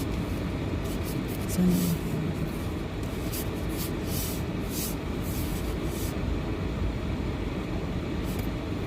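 Steady low rumble of a car heard from inside the cabin, with a few short hissing sounds in the middle.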